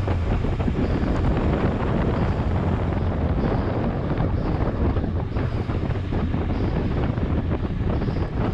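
Steady wind rushing over the microphone of a cyclist's action camera while riding at about 24 mph, with a low rumble underneath.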